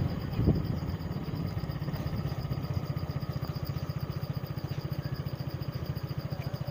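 Engine of the two-wheeler being ridden, running steadily with a fast, even low pulse.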